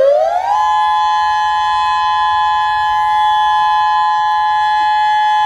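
Tsunami warning siren sounding its monthly test: its pitch rises over the first half second or so, then holds a loud, steady two-note tone.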